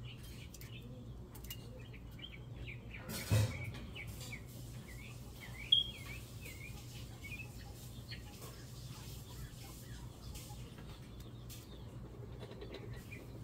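Birds chirping in short, repeated calls over a low steady hum, with a brief noisy rustle a little over three seconds in and a sharp knock near six seconds.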